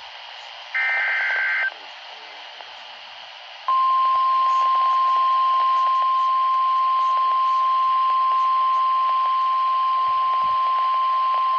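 NOAA Weather Radio receiver sounding an Emergency Alert System activation: a one-second burst of SAME digital header data about a second in, then, a little under four seconds in, the loud, steady 1050 Hz warning alert tone, which holds on. Steady radio hiss underlies it.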